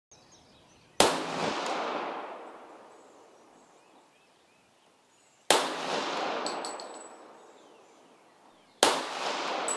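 Three pistol shots from a Les Baer 1911, a few seconds apart, each report trailing off in a long echo. This is a three-shot group fired to check where the bullets now land after the rear sight was moved.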